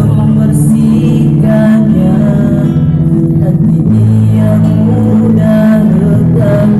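A nasyid vocal group singing: low voices hold long sustained notes under a higher melody line that moves from note to note.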